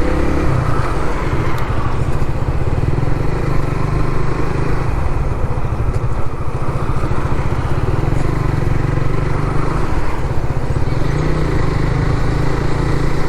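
Motorcycle engine running steadily while being ridden along a highway, with a continuous low hum and road noise.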